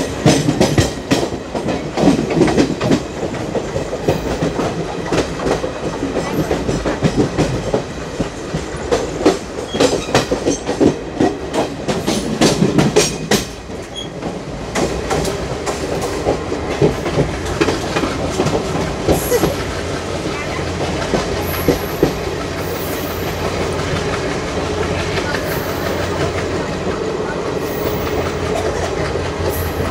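ICF passenger coach wheels running over the track, clattering rapidly over rail joints and points through the first half. They then settle into a steadier running rumble, with a few brief high wheel squeaks in the second half.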